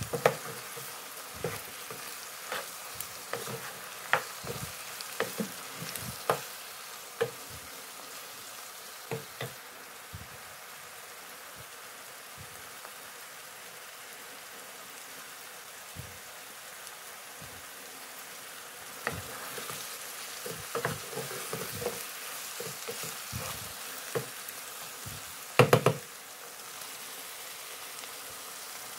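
Mushrooms and chopped vegetables sizzling as they fry in a pan, with a steady hiss. A wooden spatula and a spoon knock and scrape against the pan now and then, with a louder clatter near the end.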